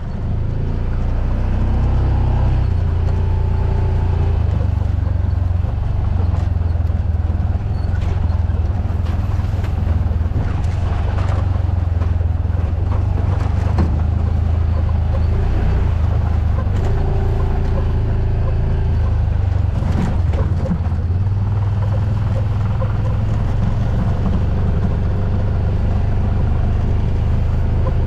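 Vehicle engine running steadily while driving, a loud low drone whose pitch shifts a little with speed.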